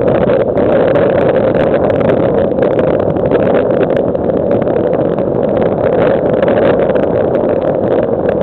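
Steady, loud rushing of strong wind buffeting the microphone over choppy surf, with frequent small crackles of splashing water.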